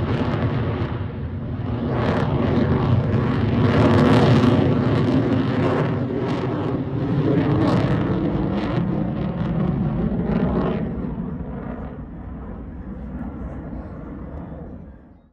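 Military jet aircraft's engines, a loud jet noise with a crackling edge, fading away as it flies off and then cutting off abruptly near the end.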